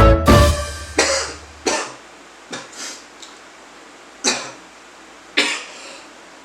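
A person coughing: five or six separate coughs, spaced about a second apart.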